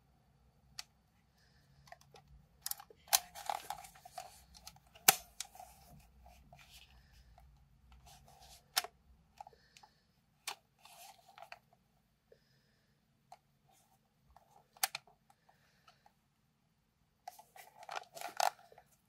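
A plastic Fuji DL-95 Super compact film camera being handled: scattered small clicks and rustling. The sounds are busiest about three to six seconds in and again in a cluster near the end, with the single sharpest click about five seconds in.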